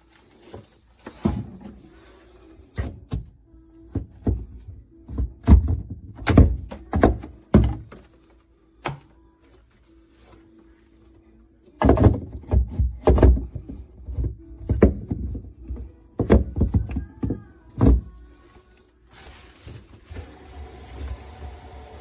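Irregular knocks and thunks, over a dozen in two clusters with a pause between, then a steady hiss from near the end.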